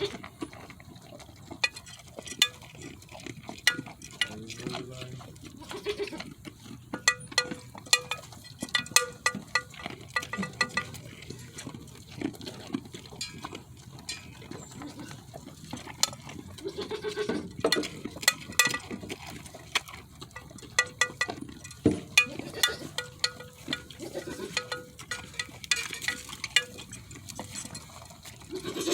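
Goats eating pellets from their feeders, with many small clicks and clinks, and a few goat bleats now and then.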